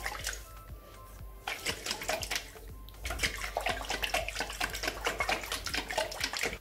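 Oil-and-vinegar vinaigrette sloshing and splashing inside a lidded glass jar as it is shaken hard, in quick repeated splashes, with a quieter pause about a second in.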